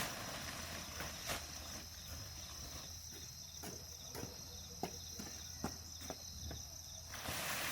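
Steady high-pitched insect chorus, with a run of short light clicks or taps in the middle.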